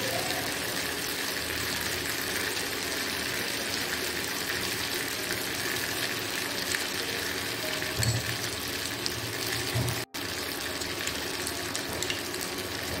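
Chilli chicken sauce simmering and sizzling in a nonstick wok: a steady hiss of bubbling sauce, cut off briefly about ten seconds in.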